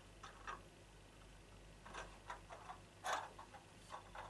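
A few faint, short clicks and taps of small wooden toy pieces being handled on a peg board at a table, the sharpest about three seconds in.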